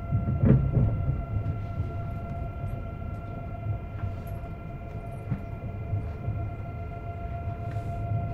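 Siemens Velaro E320 (Eurostar Class 374) electric train under power on 3,000 V DC, its IGBT traction inverter giving a steady whine of several fixed tones over a low running rumble. There is a brief louder noise about half a second in.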